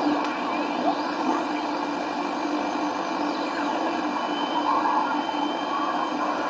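Static and hiss from a homebuilt radio receiver's speaker while it is tuned across a band, with faint whistles that glide in pitch and a thin steady whistle from about four seconds in.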